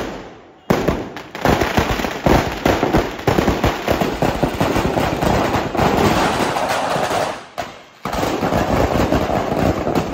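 Firecrackers packed inside a burning Ravan effigy going off in a rapid, dense string of cracks and bangs. The string breaks off briefly near the end, then starts again.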